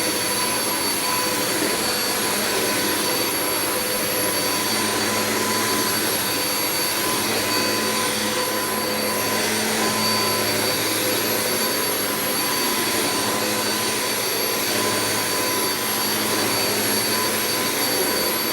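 Hoover Nano Cyclonic UH20020 upright vacuum cleaner running steadily at full speed, very loud, with a high, constant motor whine over a rush of air.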